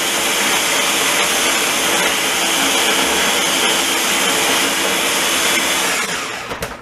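Electric food chopper running steadily as it purees a wet mix of onion, carrot, egg and spices, then winding down and stopping about six seconds in.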